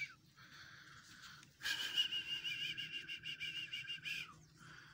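A high, warbling whistle held for about two and a half seconds, starting about a second and a half in and ending with a short downward slide.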